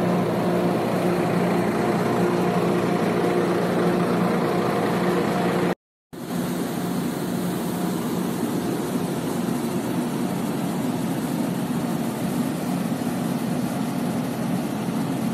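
Steady hum of shipboard machinery from moored warships, a low droning tone with a few higher pitches over a rushing noise. It drops out briefly about six seconds in, then resumes noisier, with a fainter tone.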